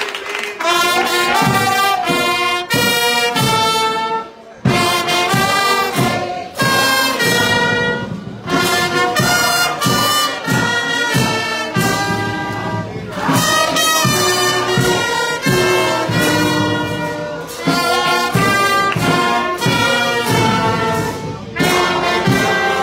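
Brass band music: trumpets and trombones playing held chords in short phrases with brief breaks between them.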